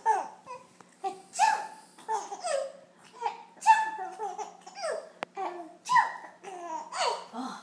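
A five-month-old baby laughing out loud in a long run of short laughs, about two a second, each dropping in pitch.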